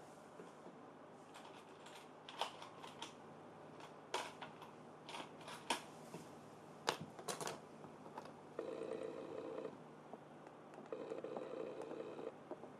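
Scattered light clicks and taps of small parts being handled on a bench. Near the end come two steady, pitched buzzes, each lasting about a second.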